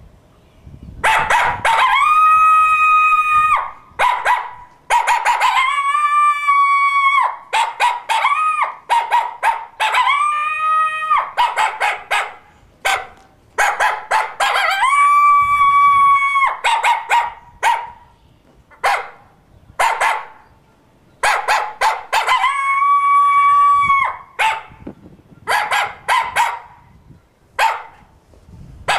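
Hand-held coyote howler call blown to imitate a coyote's threat bark howl: runs of short, sharp barks, each leading into a drawn-out howl that rises, holds a high steady pitch and falls away, repeated about half a dozen times.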